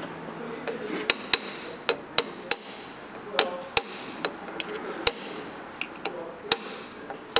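Hammer tapping, metal on metal, around the outer race of a bearing being driven into a cast Rolls-Royce Corniche water pump housing. About a dozen light taps at an uneven pace, each with a short metallic ring.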